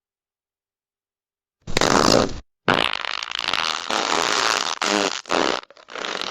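Comical fart sound effects. Silence for the first second and a half, then a short fart, then a longer run of farts broken by a few short gaps.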